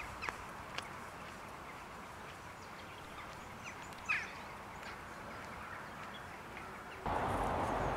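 Quiet rural outdoor ambience with a few faint clicks and a short bird chirp about four seconds in. Near the end it jumps abruptly to a louder, even rushing noise.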